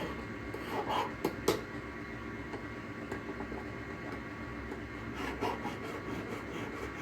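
Hand file scraping across the soldered seam of a metal bangle, a few rasping strokes about a second in and again around five seconds in, taking off excess solder.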